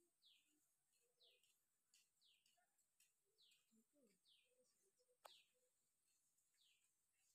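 Near silence, with a faint bird repeating a short, falling chirp over and over, and a single faint click about five seconds in.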